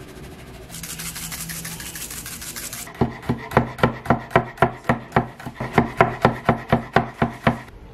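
Seasoning poured from a spouted carton onto a raw steak, a steady hiss lasting about two seconds. Then a chef's knife mincing garlic on a wooden cutting board, about four quick chops a second.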